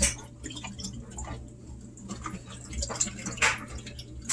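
Water dripping from a washing machine's just-removed drain-pump filter, with a few short handling sounds, one near the start and a couple about three seconds in.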